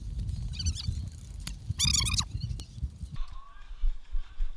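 Wind and movement rumble on the microphone, with two brief high-pitched shouted calls from players. About three seconds in, the sound cuts to a quieter background.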